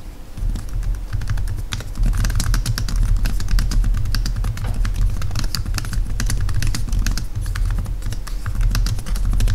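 Typing on the Samsung Galaxy Chromebook's laptop keyboard: a fast, continuous run of key clicks, several a second, starting about half a second in.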